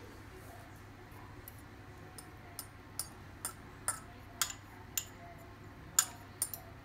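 Light clinks and taps against a small ceramic ramekin as a herb-and-garlic mixture is scraped out of it, about ten sharp clicks at roughly two a second, the loudest about six seconds in.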